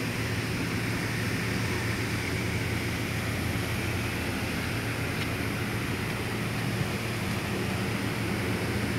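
Steady drone and rushing noise from an anchor-handling tug supply ship's external fire-fighting (FiFi) system running at full output. The main engines drive the fire pumps, and the water monitors throw high-pressure jets.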